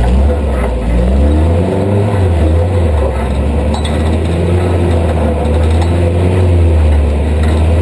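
Off-road vehicle's engine running under load, its pitch rising and falling again and again as the throttle is worked.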